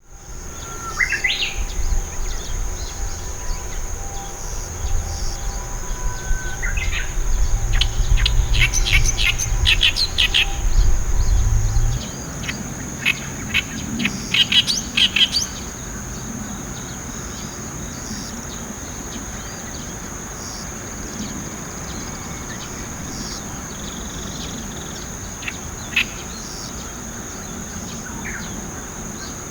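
Oriental reed warbler singing in bursts of harsh, rapidly repeated chattering notes, over a steady high-pitched insect drone. A low rumble runs beneath the first part and stops about twelve seconds in.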